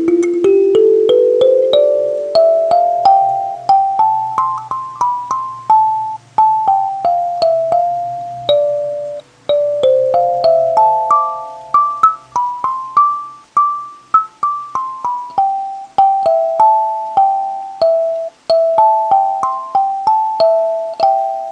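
Kalimba played by thumb, plucking single tines in a free, unmetered stream of ringing, overlapping notes. The notes climb step by step from the low tines to the high ones, drop back partway and climb again.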